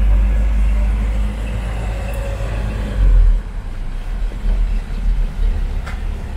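1966 Chevy C30 dually truck's engine running as the truck drives by, a steady low rumble. It swells briefly about three seconds in, then carries on more unevenly.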